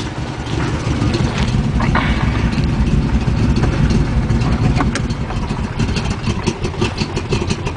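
1974 Corvette's 350 cubic-inch V8, fitted with a slightly bigger cam, idling steadily in park through its factory side-pipe exhaust.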